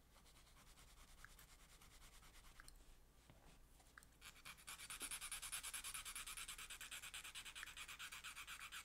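Rapid, even scratching of a fine steel pick against a small rusty three-jaw lathe chuck. It is faint at first and grows louder from about four seconds in, then stops abruptly at the end.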